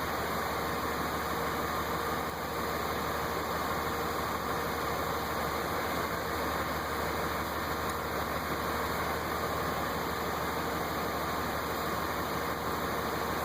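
A steady mechanical drone with a constant hum, unchanging in level.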